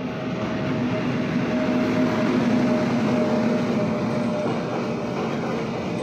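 Electric locomotive hauling a container freight train past at speed: a loud, steady rumble of wheels on rail, with a steady hum over it that stops about four and a half seconds in as the container wagons roll by.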